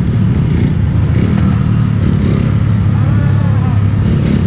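Several small-displacement motorcycle engines idling together in a steady low drone, with a voice briefly audible about three seconds in.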